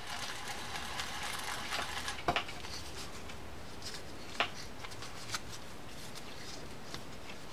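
Freshly reassembled Shimano Corsair 400 baitcasting reel being worked by hand: a faint whirr and rattle of the gears as the handle is turned for the first couple of seconds, then a few sharp clicks, the first about two seconds in.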